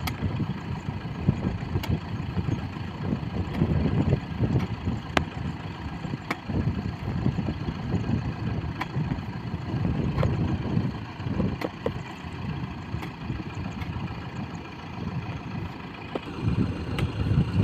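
Kubota tractor's diesel engine idling steadily, stuck in mud, with its low rumble growing louder near the end.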